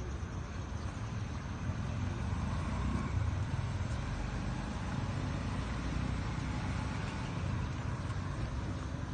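Steady street noise: a low rumble of road traffic.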